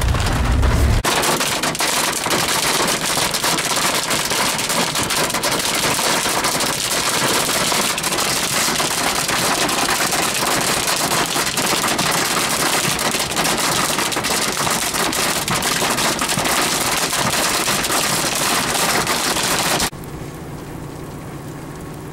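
Hail drumming on a vehicle's roof, hood and windshield, heard from inside the cab as a loud, dense rattle of countless small impacts. It cuts off suddenly about two seconds before the end, leaving a much quieter steady noise.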